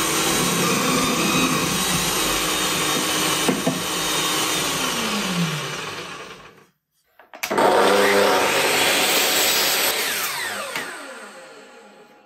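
Benchtop drill press running as it bores through a wooden block, then winding down with a falling pitch. After a short break a Metabo mitre saw starts suddenly, cuts the block, and its blade spins down, the pitch falling as it fades out.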